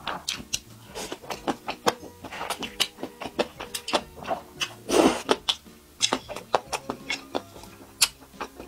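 Close-up mouth sounds of eating rice noodles: quick wet chewing smacks and slurps, with one longer, louder slurp about five seconds in, over soft background music.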